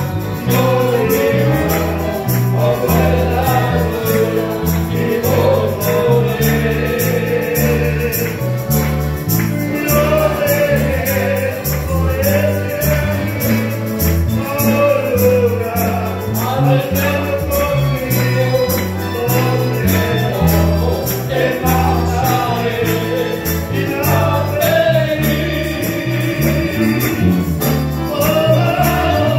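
Congregation singing a hymn together, accompanied by a band of strummed guitars and other string instruments, with a steady rhythmic bass line under the singing.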